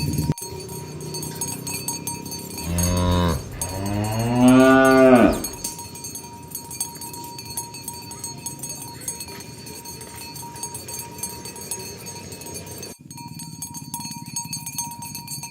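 Domestic cattle mooing. A short low moo comes about three seconds in, followed at once by a longer, louder moo that rises and then falls in pitch. After that there is only quiet background with faint scattered clicks.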